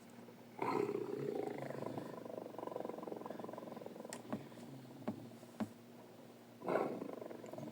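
Tiger growl sound effects. A growl starts about half a second in and trails off over several seconds into a low rumbling purr. A few sharp clicks follow, then a second growl near the end.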